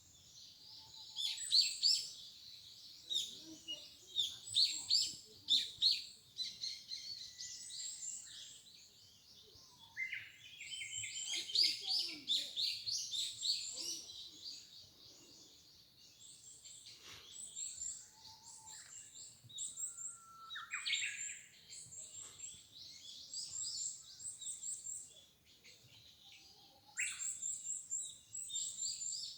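Forest birds chirping and singing, several at once: bursts of quick high-pitched chirps and trills, with brief lulls between the bursts.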